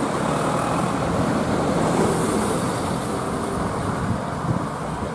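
Road traffic noise from vehicles passing on a road, a steady rumble and tyre hiss with no horn sounding.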